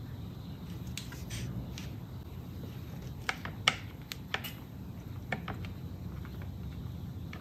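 A handful of light clicks and knocks from a hand working among the plastic and metal parts inside a portable inverter generator's housing, the sharpest about halfway through, over a faint low steady hum.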